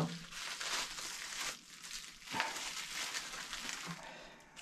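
Bubble wrap crinkling and rustling as a brushless motor is pulled out of it and unwrapped, with a few sharper crackles.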